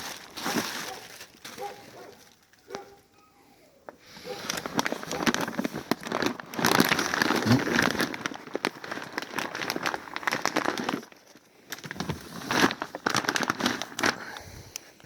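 Food packaging being handled and unpacked, crinkling and crackling in long runs with a short pause a little before the end.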